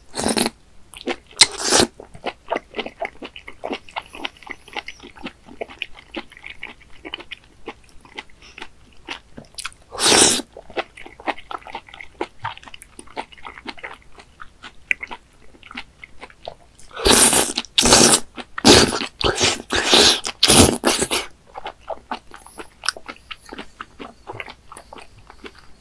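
Close-up mouth sounds of someone eating raw baby squid in sauce: steady wet chewing with quick clicks and smacks. Louder slurps come near the start, about ten seconds in, and in a cluster around seventeen to twenty-one seconds.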